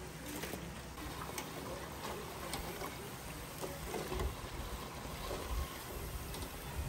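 Battered mussels deep-frying in hot oil: a steady bubbling sizzle with scattered small crackles.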